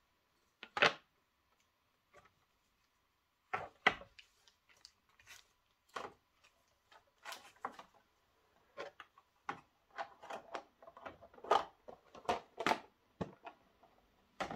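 Clear plastic model-train packaging handled by hand: irregular clicks, taps and crinkles as the transparent box and its insert are opened and set down on a wooden table, coming thicker in the second half.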